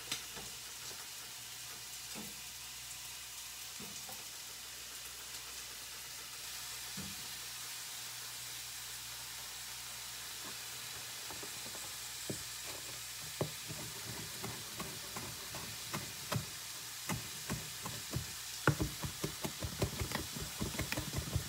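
Chef's knife chopping cilantro on a plastic cutting board: a few scattered taps from about halfway, then a fast run of chops over the last few seconds. A steady sizzling hiss of frying food runs underneath.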